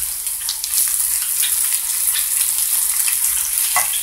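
Diced potatoes and onion sizzling in hot oil in a large non-stick frying pan over the highest heat: a steady hiss with scattered pops and crackles.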